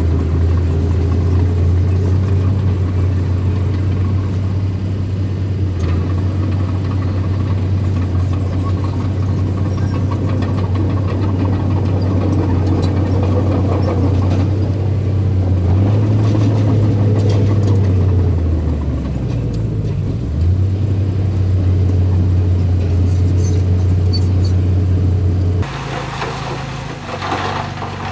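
Small bulldozer's engine running steadily under load, dipping in pitch for a couple of seconds about two-thirds of the way through and then picking back up. Near the end it drops suddenly to a quieter engine sound with some clatter.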